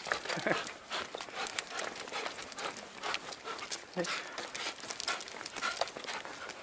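Hurried footsteps and a golden retriever's claws clicking irregularly on asphalt as the excited dog pulls along on its leash. The dog gives a couple of short vocal sounds, one near the start and one about four seconds in.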